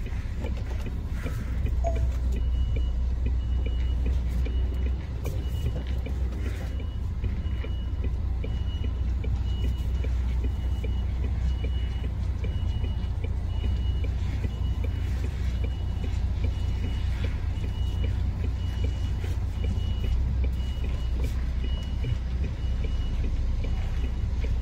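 Articulated lorry reversing slowly: its diesel engine runs low and steady while a high-pitched reversing alarm beeps evenly, about three beeps every two seconds, starting about two seconds in.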